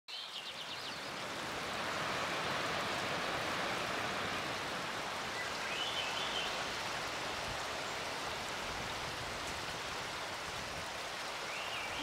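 Steady rush of falling water from a waterfall, with a few short bird chirps near the start, around the middle and just at the end.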